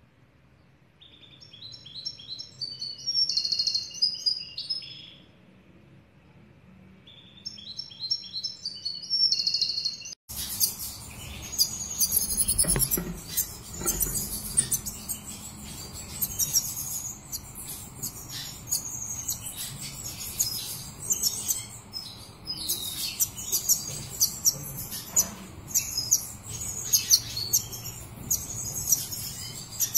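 Black siskin song: two short twittering phrases in the first ten seconds. About ten seconds in the sound changes abruptly to near-continuous high chirping and twittering over a louder hiss, with a few knocks.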